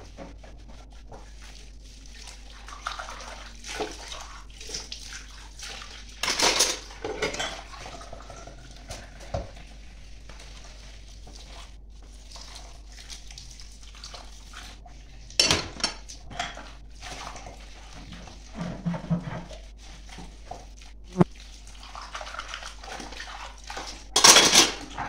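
Dishes being washed by hand at a sink: plates, glasses and a ladle clinking and clattering against each other and a stainless steel tray, with tap water splashing. It goes in irregular knocks, with a few louder bursts of splashing and clatter spread through.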